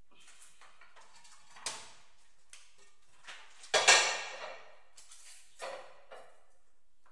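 Hard objects knocking and clattering as tiling materials are handled: a sharp knock about two seconds in, a louder clatter with a short ring about four seconds in, and a smaller knock near six seconds, with light scraping in between.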